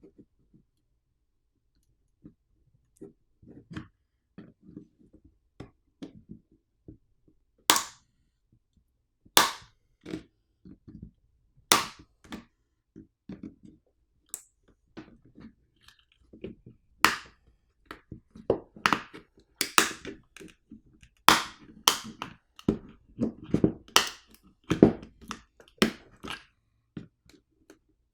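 Plastic power bank housing being pried apart: small scrapes and clicks, then a series of sharp cracks and snaps as the case clips give way, coming closer together in the second half.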